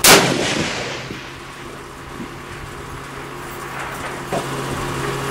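A single shot from a Type 99 Arisaka bolt-action rifle in 7.7×58mm, firing original WWII-era Japanese ball ammunition. It goes off right at the start and its echo dies away over about a second. A few faint clicks follow later.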